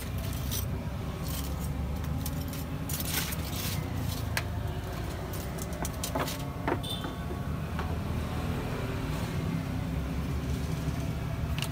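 A steady low motor hum, like an engine running, with scattered light clicks and clinks.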